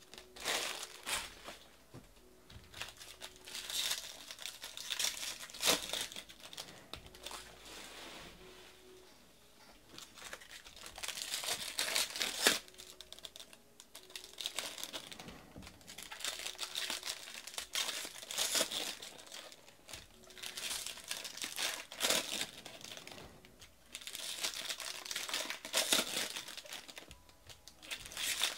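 Foil wrappers of Bowman baseball card packs crinkling and being torn open, with cards flipped and shuffled in the hands, in repeated bursts of a second or two separated by quieter gaps.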